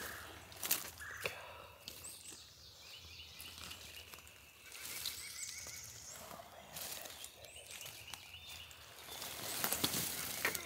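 Dry leaf litter and the feathers of a dead wild turkey rustling and crackling as the bird is handled on the forest floor, with the handling getting busier near the end. Songbirds call in the background.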